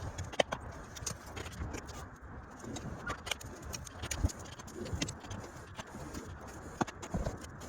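Steady rush of a hair dryer on low, blowing air into a small wood-fired forge, with scattered light clicks and clinks on top.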